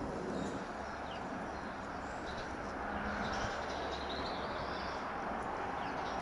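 Steady rush of distant jet aircraft noise, with small birds chirping now and then.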